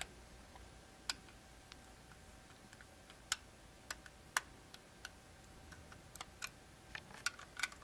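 Faint, irregular clicks and taps of small plastic parts as a hand-held plastic band stamp is handled and its rubber stamp belts are fitted, with a few sharper clicks and a quick run of them near the end.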